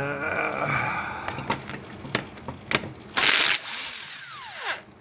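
Handheld power tool loosening a bolt to take off a tractor's throttle pedal: a short whirr, a few clicks, then a loud burst about three seconds in, after which the motor winds down with a falling pitch.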